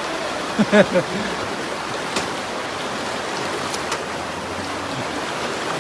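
Steady rush of fast-flowing floodwater, with a person's voice calling out briefly about a second in.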